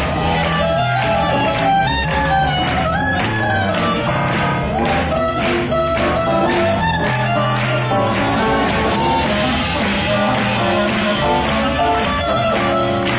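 Swing jazz music playing with a steady beat.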